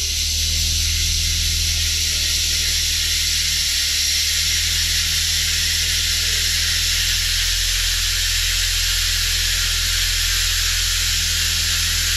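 Nissan Maxima's 3.5-litre V6 idling steadily just after a start, a low even hum under a strong steady hiss. The alternator is now charging after its wiring harness was repaired.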